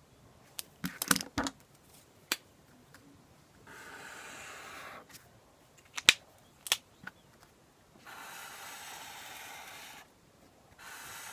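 Stationery on a desk: a few sharp clicks and taps of a pen and highlighter, and three long steady strokes of a highlighter drawn across paper, each lasting one to two seconds.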